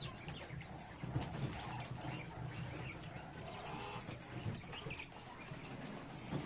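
Caged quails calling: faint, scattered short chirps and clucks.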